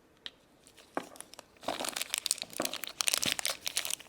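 Plastic toy wrapper crinkling and tearing as a small Shopkins packet is opened by hand: a few separate clicks at first, then a dense run of crinkling from about halfway through.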